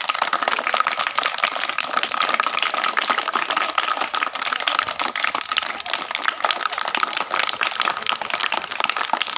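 A group of children clapping their hands steadily, many claps overlapping.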